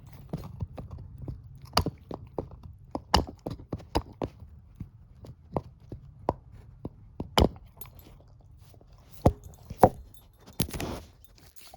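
Shepherd-mix dog chewing a bone: irregular sharp crunches and cracks, several much louder than the rest.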